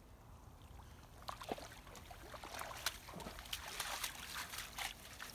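A dog wading through shallow water and climbing out onto the bank with a retrieved goose: splashing and trickling water with scattered crackles, growing busier about a second in.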